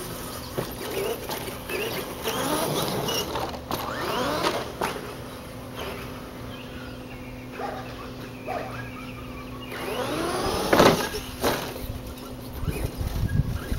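HPI Wheely King electric RC monster truck with a 20-turn motor, its motor whining and rising and falling in pitch as it speeds up and slows. There are several knocks of the truck hitting the ground, and one loud burst about eleven seconds in.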